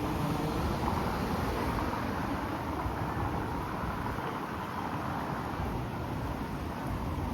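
Strong wind rushing and buffeting across the microphone, a steady noisy roar with a low rumble.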